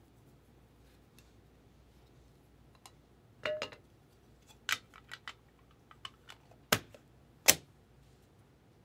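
A stack of Topps Chrome baseball cards being handled and thumbed through: scattered sharp clicks and snaps of the card edges against each other, the two loudest late on.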